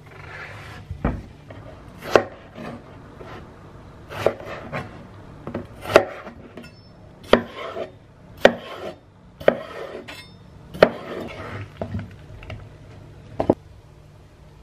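Kitchen knife cutting watermelon into cubes on a wooden cutting board: the blade crunches through the flesh and knocks on the board about ten times, roughly once a second or so.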